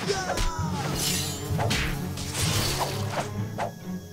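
Cartoon action sound effects: several quick whooshes followed by sharp impact hits about three seconds in, over background music.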